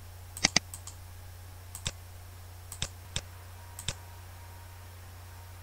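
Computer mouse buttons clicking: a quick double click about half a second in, then four single clicks spaced roughly a second apart, over a steady low hum.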